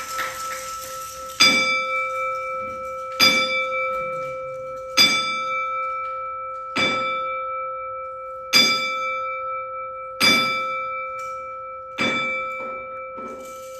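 Wrestling ring bell struck seven times at an even pace, about once every second and three-quarters, each strike ringing on and fading. This is the ten-bell count that marks a wrestler's retirement.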